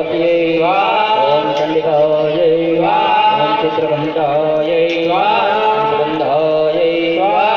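Devotional chanting of mantras, a sung phrase that rises at its start and repeats about every two and a half seconds, over a steady drone.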